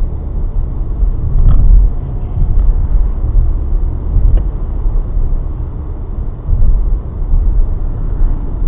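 Car driving, heard from inside the cabin: a steady low rumble of road and engine noise that rises and falls.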